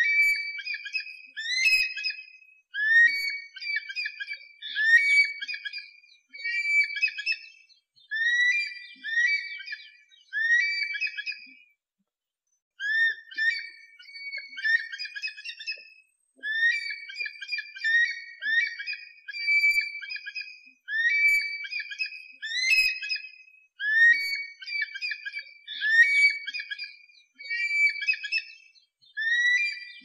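Eagle calling: a string of high, sharp whistled notes in quick phrases about once a second, with a brief pause about twelve seconds in.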